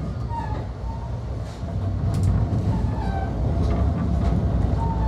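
Amtrak passenger train heard from inside the coach: a steady low rumble of wheels on the rails with scattered clicks, growing louder about two seconds in.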